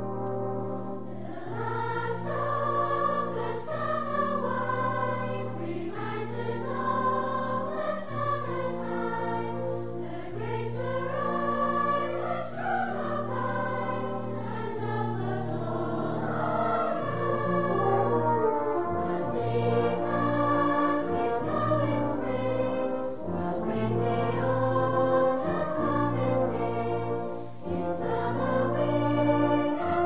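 Background music: a choir singing slow, sustained melodic lines over brass and a steady bass.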